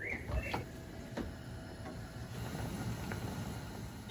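A few faint, scattered clicks and light knocks over low background noise.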